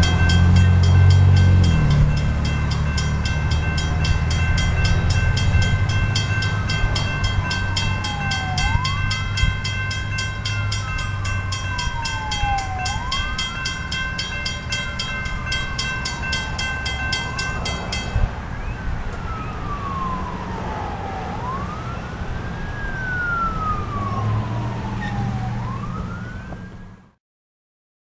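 Railroad crossing bell ringing with rapid, even strikes, stopping about two thirds of the way through. Over it a siren wails, rising quickly and falling slowly every three to four seconds, and a low rumble is heard at the start. The sound cuts off just before the end.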